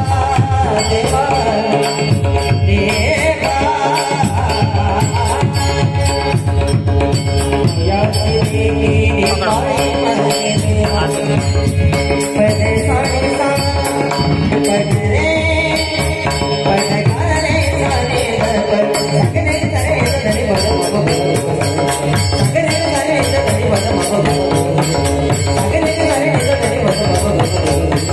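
Devotional abhang music: hand cymbals keep a fast, steady jingling beat over drums and a melody line, without pause.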